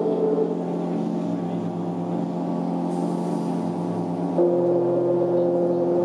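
Electric keyboard holding long, steady chords in a live band's song intro, moving to a lower chord about four and a half seconds in.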